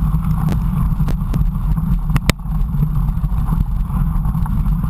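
Steady low rumble of wind and rolling tyres on an action camera's microphone during a mountain bike ride, with a few sharp clicks and knocks in the first half, the strongest a quick pair just after two seconds.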